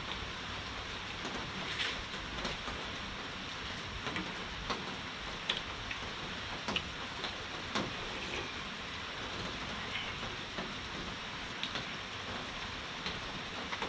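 Steady heavy rain falling, with scattered sharp clicks and drips over it.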